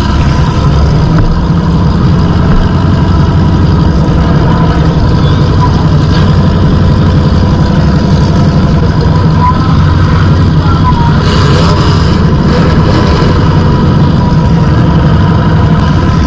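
Demolition derby car's engine running at a steady idle, loud and close, heard from inside the stripped-out cabin.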